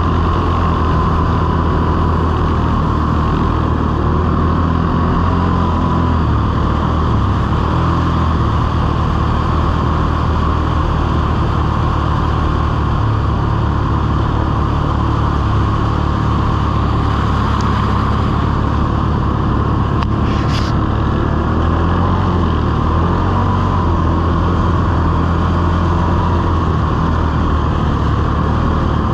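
Can-Am Outlander XMR 1000R ATV's V-twin engine running steadily under way at cruising speed, with a short click about two-thirds of the way through.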